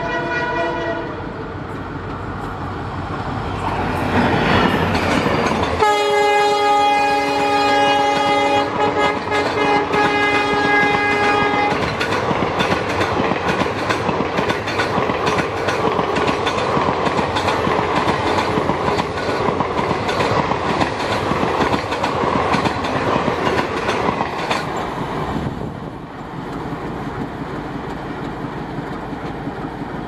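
EMD WDP4 diesel locomotive sounding its multi-note horn in a tune: a chord that stops about a second in, then a long, loud chord starting about six seconds in and held for about six seconds, its notes changing partway through. The locomotive's run-past builds up before the long chord, and afterwards the passenger coaches rattle past with a fast clickety-clack of wheels over rail joints, easing off near the end.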